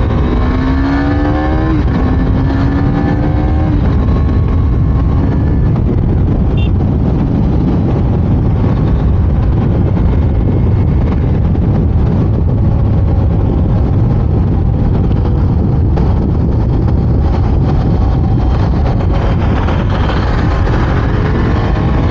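KTM Duke 390's single-cylinder engine accelerating through the gears, its pitch rising and then dropping at each of two or three upshifts in the first few seconds. Then heavy wind rush on the microphone at speed, with the engine pitch rising again near the end.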